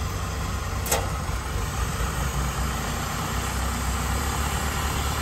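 Combine harvester's diesel engine running steadily with a low hum, with one sharp click about a second in.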